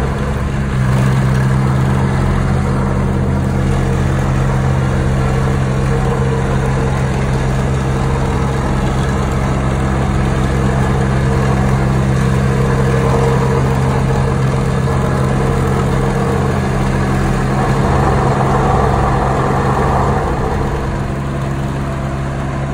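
Engine of a Wacker Neuson RTSC3 remote-controlled trench roller running steadily as the roller drives over gravel. It gets a little louder shortly before the end, then eases off.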